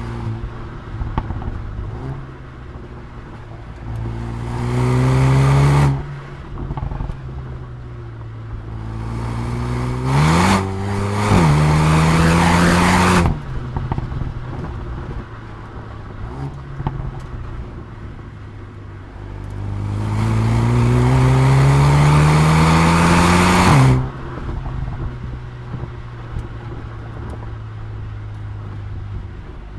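Mercedes-AMG A35's turbocharged four-cylinder engine and exhaust pulling hard three times, rising in pitch, with one quick gear change partway through the second pull. Each pull cuts off sharply when the throttle is lifted, and scattered exhaust pops and crackles follow while it runs at light load between pulls.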